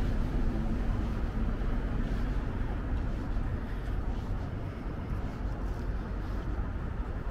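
Steady city street background noise: a low, even rumble of traffic with no distinct single event.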